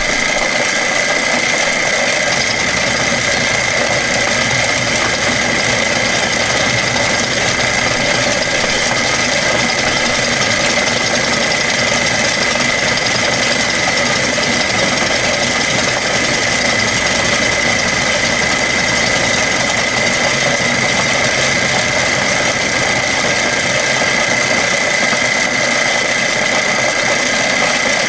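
Milling machine spindle running, its end mill cutting a flat spot into a metal AR-15 lower receiver: an even cutting noise with a steady high-pitched whine.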